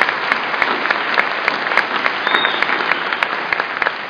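Audience applauding: a dense, steady patter of clapping, with many individual sharp claps close by standing out from it.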